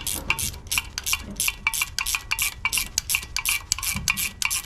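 Hand ratchet wrench clicking in quick, even strokes, about five a second, as a coolant line fitting is loosened.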